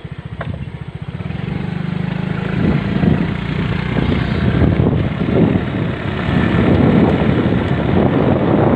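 Small motorcycle engine throbbing evenly at low revs, then running louder and rougher from about two and a half seconds in as it is ridden.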